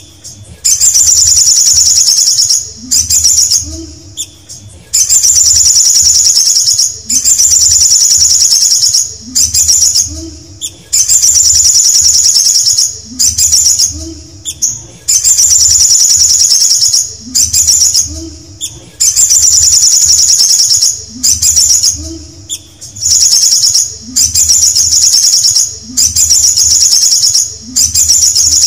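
Male olive-backed sunbird singing: a high, rapid trilling phrase of about a second and a half, repeated roughly every two seconds.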